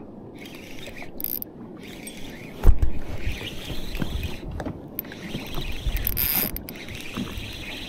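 Daiwa Saltiga 4000 XH spinning reel being wound in against a hooked fish, its gears and bail ticking, with a thump about a third of the way in.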